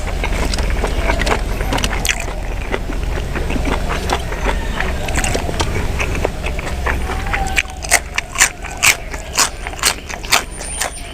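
Close-miked mouth chewing and lip smacking while eating larb of minced buffalo meat. From about eight seconds in the chews turn loud and rhythmic, about two a second, over a steady low hum.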